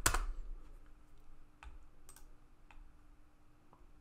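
Computer keyboard keystrokes at the start as the login is finished, followed by a few faint, scattered clicks of keys or a mouse.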